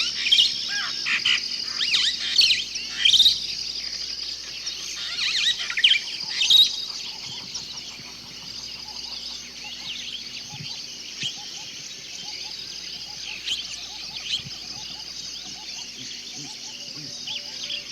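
Crickets chirping in a steady high pulsing trill, with many quick, sharper chirps over it, thickest and loudest in the first seven seconds and sparser after.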